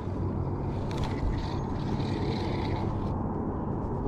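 Spinning reel being cranked to retrieve a jig, its gears whirring with a few clicks, over a steady low hum.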